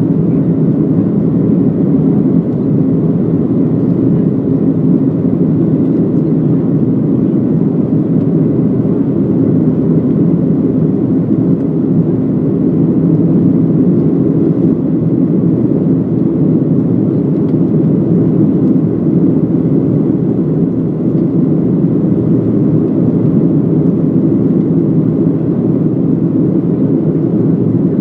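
Steady cabin noise of a Boeing 737-800 climbing after takeoff: its CFM56-7B turbofan engines and the airflow make an even, low-pitched rumble that does not change.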